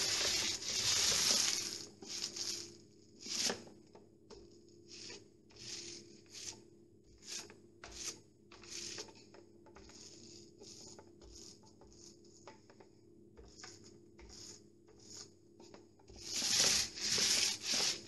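Paint roller spreading emulsion on a plastered wall, with a sticky hiss. The longer strokes come in the first two seconds and again near the end, with short, quieter strokes in between.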